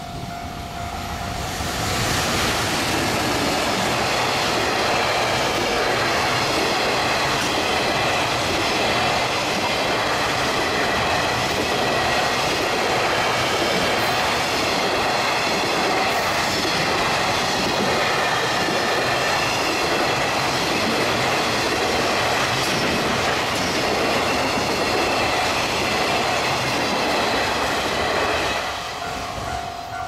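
JR Freight EF210 electric locomotive and its long train of container wagons passing close by at speed, a loud steady rush with wheels clattering over the rail joints. The level-crossing warning bell rings at the start, is drowned as the train noise swells after a second or two, and comes back as the noise falls away near the end.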